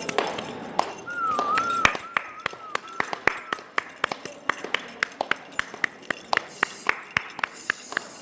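Iron knocking in a steady rhythm: sharp clicks about three to four a second. About a second in, a wavering whistle-like tone runs for roughly two seconds over the clicks.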